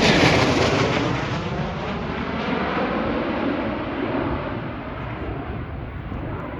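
Jet aircraft passing low overhead, its engine noise loudest at the start and then slowly fading as it moves away, with a rippling, phasing sweep through the sound.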